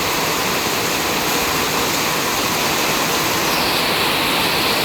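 Heavy monsoon rain pouring down, a loud, steady rushing hiss.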